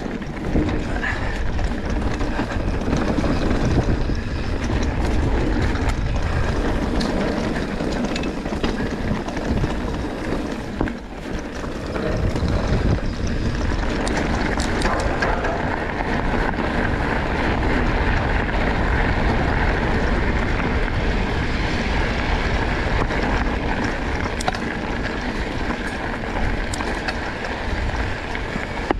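Enduro mountain bike descending a dirt trail: a steady rush of wind on the microphone and tyre noise, with scattered clicks and rattles from the bike.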